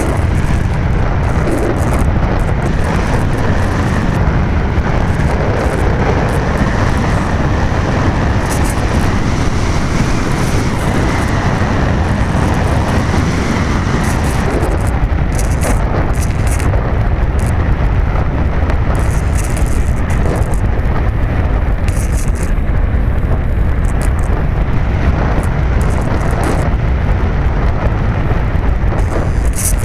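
Steady wind rush buffeting the microphone of a keychain camera strapped to an RC glider in flight.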